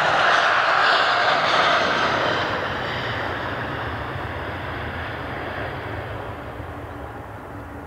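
Jet airliner's engines at takeoff thrust, a loud roar that fades steadily from about two seconds in as the aircraft climbs away.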